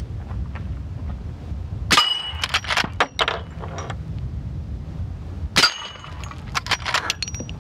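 Two suppressed shots about three and a half seconds apart from a Marlin Dark .44 Magnum lever-action firing 400-grain subsonic bullets. Each is quiet enough that the clang of the bullet striking a steel dueling-tree paddle rings out with it. Lighter metallic clinks follow the first shot, over a low rumble.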